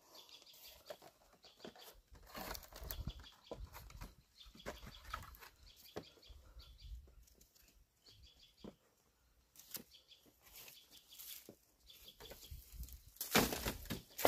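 Scattered knocks, creaks and rustling from climbing a bamboo ladder onto a tree house platform strewn with dry straw, with a louder burst of rustling near the end.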